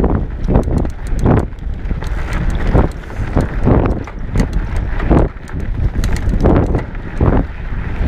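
A cyclist's heavy, rhythmic breathing while climbing, a swell about every 0.7 s, over the steady rumble of wind and tyres on the microphone.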